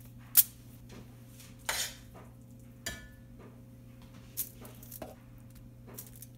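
Kitchen handling sounds: a sharp tap about half a second in, a short rustle, then a metal serving spoon clinking and scraping as scrambled egg and sausage filling is scooped onto a tortilla, with a few light taps after. A faint steady hum runs underneath.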